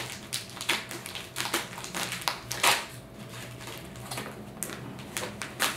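A parcel being opened by hand: irregular rustling and crinkling of packaging with many small crackles, the sharpest about two and a half seconds in.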